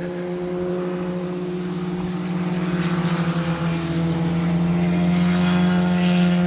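A steady engine drone with a low pitched hum, growing louder as it comes closer.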